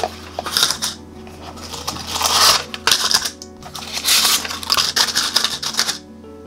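Paper cupcake liners crinkling and rustling in three bursts as they are pulled from a stack and pressed into a metal muffin tin, over soft background music.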